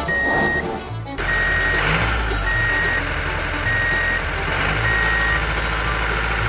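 Truck reversing alarm beeping, a steady high tone about half a second long repeating about once a second, five times, over a low engine rumble that comes in about a second in, with background music.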